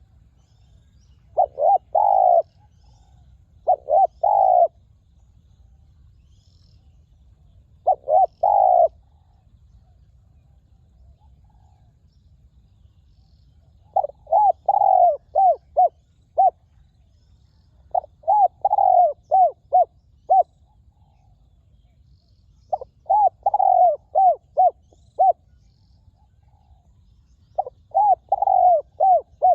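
Spotted dove cooing: seven phrases of short, resonant coo notes with pauses of a few seconds between them. The later phrases are longer, with more notes each.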